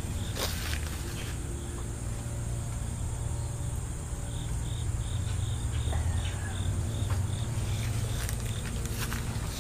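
An insect chirping in a regular series of short, high pulses, about two or three a second, beginning about four seconds in, over a steady low rumble.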